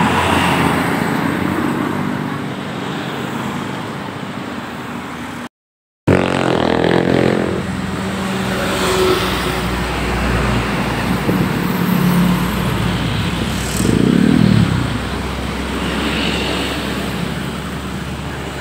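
Tour bus engines running past on a road, the engine note falling away and later rising and falling again. The sound cuts out briefly about five and a half seconds in.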